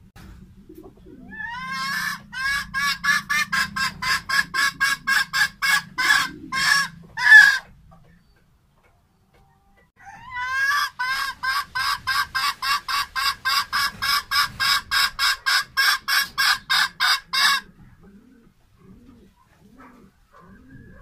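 Red junglefowl hen clucking in two long runs of quick, evenly spaced notes, about four a second, the first lasting about six seconds and the second about seven, with a short pause between them.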